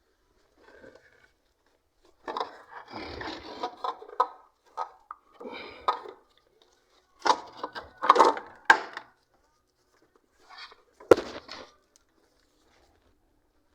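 Irregular scraping and clunking of parts being handled, in several short bouts, with one sharp knock about eleven seconds in.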